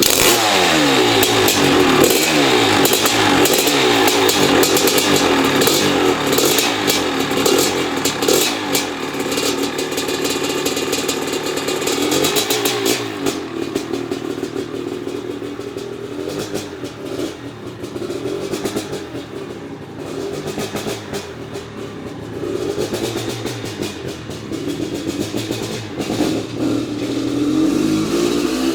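Maico 660 two-stroke single-cylinder dirt bike engine running and being revved, its pitch rising and falling. It runs hardest through the first half, then drops to a lower, uneven running.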